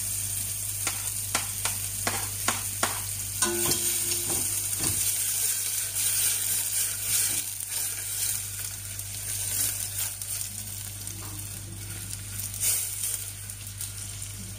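Chopped white spring onion sautéing in a stainless steel pot over a gas burner: a steady high sizzle, with a few sharp clicks in the first three seconds and a short scrape about four seconds in.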